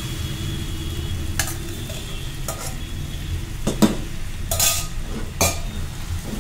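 Steel spoon scraping and knocking against a steel vessel and the pan as cooked, mashed moong dal is scooped out onto frying vegetables and stirred. There are about five sharp clinks and scrapes, the loudest about four seconds in, over a steady low sizzle from the pan.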